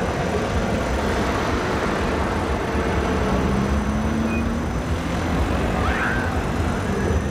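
Steady road-traffic and street noise with a heavy low rumble. A faint engine tone slowly rises in pitch about halfway through.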